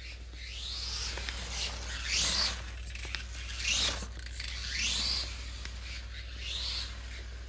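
Small electric motor and gearbox of a mini RC monster truck revving in five short bursts, each a rising whine, about one every second and a half.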